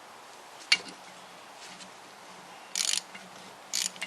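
Metal hand tools being handled: a sharp clink under a second in, then two short metallic rattles near the end.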